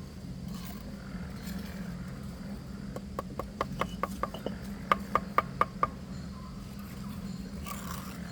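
Hammer blows: a quick, even run of sharp knocks with a short ring, about four a second, from about three seconds in to about six seconds in, the last five the loudest. A steady low hum runs underneath.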